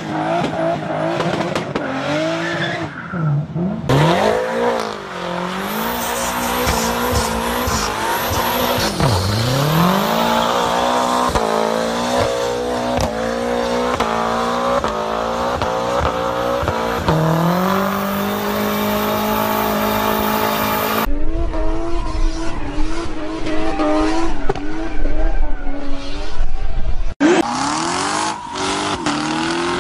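Car engines revving hard during burnouts, with tyre squeal, in several clips cut together. The engine pitch swoops up and down and climbs, then holds a steady high note for a few seconds, and the sound changes abruptly at each cut.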